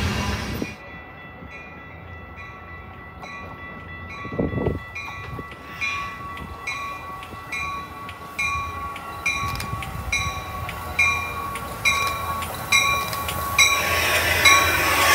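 Railroad crossing bell ringing in an even rhythm, a little faster than once a second. A loud train noise cuts off just after the start, and a train's noise builds again over the last couple of seconds.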